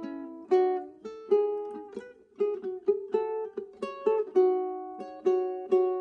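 Solo ukulele played fingerstyle: a melody of plucked single notes and chords, each ringing and fading before the next.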